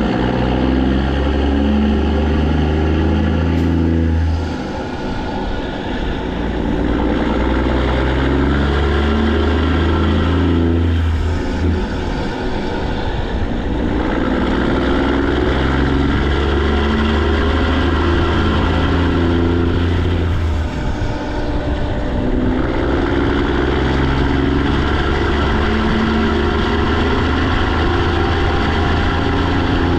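Straight-piped PACCAR MX13 diesel with a full emissions delete, running loud under load, its exhaust note breaking off briefly three times, about 4, 12 and 21 seconds in, as it goes through the gears.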